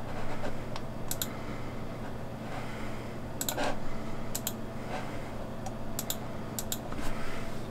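Scattered keyboard and mouse clicks at a computer, several in quick pairs, over a steady low hum.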